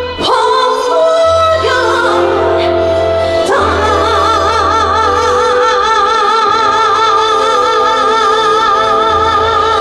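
A female singer singing a ballad live over band accompaniment, moving through a few notes and then, about three and a half seconds in, holding one long note with wide vibrato.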